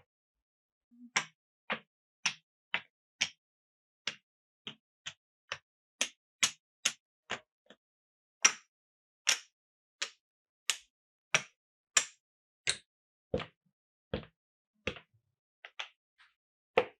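Hard clacks from a Cuboro wooden marble run and its marbles: a series of sharp, separate clicks, about two a second, with silence between them.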